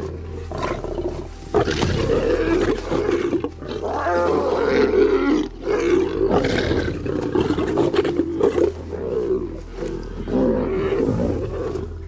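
Lions snarling and growling in repeated rough bouts: a lioness threatening cubs away from her kill as they try to feed.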